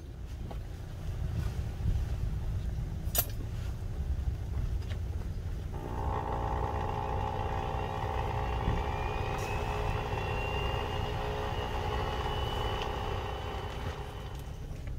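Charcoal forge heating a steel knife blade, with a steady low rumble of air and fire. About six seconds in, a steady mechanical hum joins, and there is one sharp click about three seconds in.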